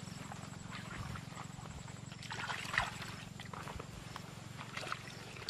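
Hands digging into a wet mud bank in shallow water, with scattered squelches and small splashes over a steady low drone.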